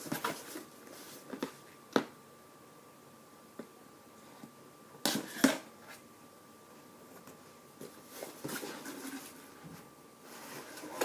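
A cardboard subscription box being handled and opened: scattered sharp clicks and taps, with a double knock about five seconds in and faint rustling near the end, over a faint steady high hum.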